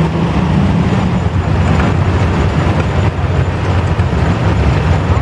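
Antique tractor engines running as a line of tractors drives slowly past, the nearest an Oliver pulling a planter: a steady, loud, low rumble.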